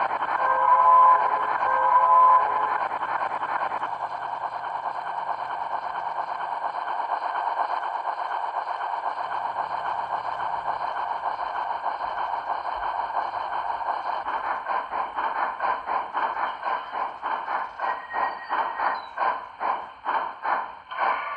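Paragon 2 DCC sound decoder in an HO-scale model rotary snow plow playing railroad sound through its small speaker: a steady running sound with two short whistle blasts about a second in. About two-thirds of the way through the running sound turns into an even pulsing of about two beats a second.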